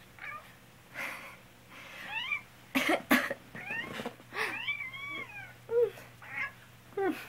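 A person with a cold coughing several times, and a pet cat meowing back after the coughs, about six short meows that rise and fall in pitch.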